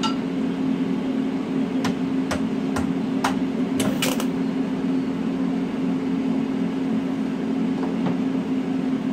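TIG welder running while a steel exhaust pipe and resonator are welded: a steady buzzing hum with hiss, and a few sharp clicks between about two and four seconds in.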